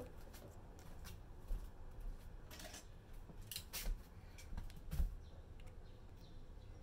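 Handling noise from small skincare containers and packaging: scattered rustles and light clicks and knocks, with a few soft thumps about one and a half, four and five seconds in.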